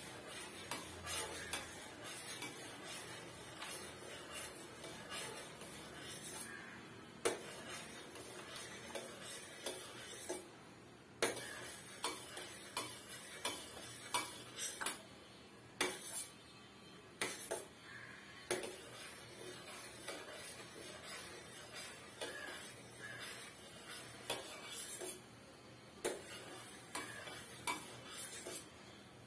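Metal spoon stirring hot milk in a stainless-steel saucepan, clinking and scraping against the pan in short, irregular clicks.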